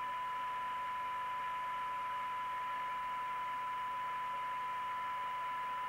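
TTI TCB550 CB radio receiving a weak FM test signal: a steady 1 kHz test tone over receiver hiss and a low hum. The signal sits near the set's sensitivity limit while its receive coils are tuned for best SINAD.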